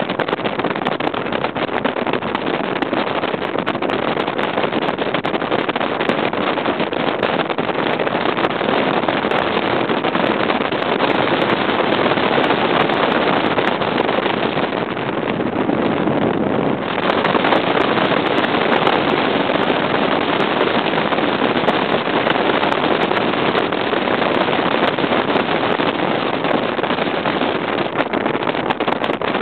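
Bass boat running fast, powered by a Mercury 200 EFI V6 two-stroke outboard: a steady rush of wind and water noise over the microphone with the outboard under it. The rush dulls briefly about halfway through.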